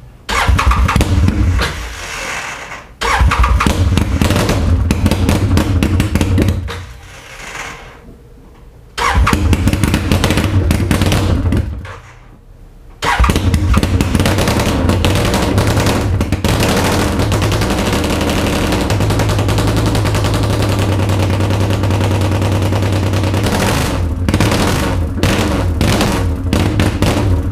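2013 Arctic Cat Wildcat 1000 X side-by-side's V-twin engine being started for the first time after a salvage rebuild. It fires in short runs that fall away three times, then keeps running from about 13 seconds in.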